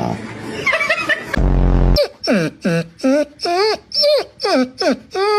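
A dog vocalizing: a quick string of about eight short, pitched yowling calls that mostly slide down in pitch, leading into a long held call at the end.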